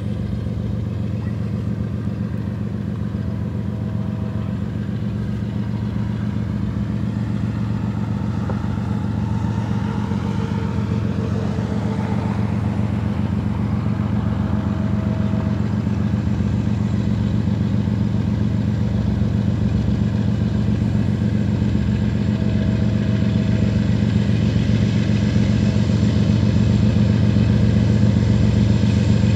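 Diesel engines of a Union Pacific freight train's locomotive consist, an EMD SD40-2 among them, working as the train starts out. It is a steady deep drone that grows slowly louder as the locomotives come closer.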